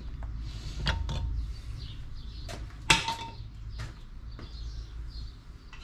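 A few light metallic clicks and clinks of small brake hardware being handled, the sharpest about three seconds in with a short ring, over a steady low hum.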